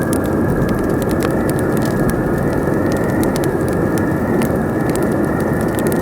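Campfire crackling against steady howling wind: a dense, even rush with many sharp pops and snaps scattered through it.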